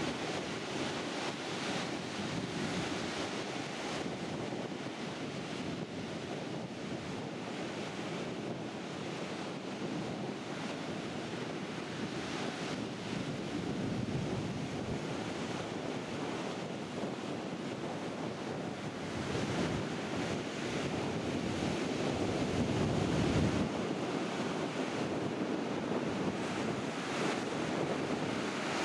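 Storm surf on the Baltic Sea: waves break and wash up the sand in a continuous rush, with wind buffeting the microphone. The sound swells louder and deeper for a few seconds about two-thirds of the way through.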